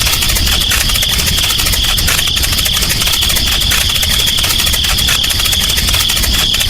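Small electric motor of a DIY model tractor running steadily, with a constant high whine over a fast, even rattle.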